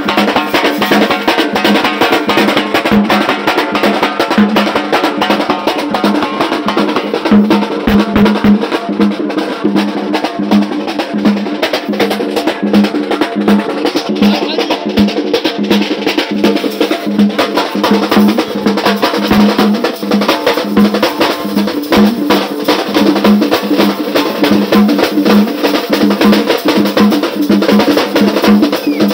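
A street drum band playing: several double-headed side drums beaten fast with pairs of sticks, over large double-headed drums struck with a curved stick and the hand, which give a steady, regularly repeating low beat.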